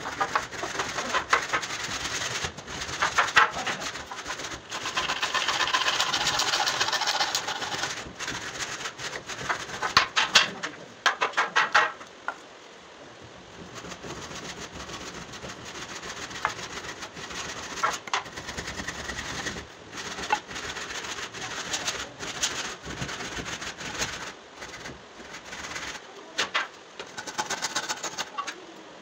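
Hand carpentry on softwood battens: irregular knocks and clatter of wood against wood and the floor, with a few seconds of steady scraping about five seconds in and runs of quick taps from hand tools.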